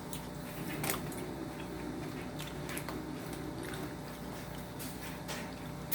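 Close-miked chewing and biting of grilled steak: irregular wet mouth clicks and smacks, the sharpest about a second in.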